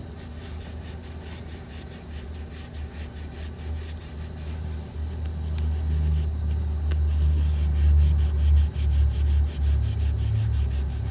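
Scotch-Brite abrasive pad scrubbing the metal camshaft oil seal bore, a rapid rhythmic rubbing of several strokes a second, over a low rumble that grows louder about halfway through.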